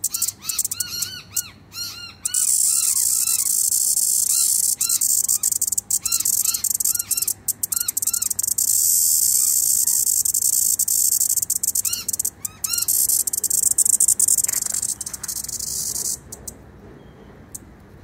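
A cicada held between fingers singing: a loud, steady, high-pitched buzz that stutters briefly in the first two seconds, then runs on and stops about two seconds before the end. Birds chirp repeatedly in the background, mostly in the first half.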